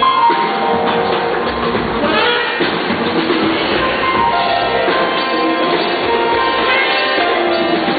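Live band playing an instrumental passage with guitar and drums, and no voice.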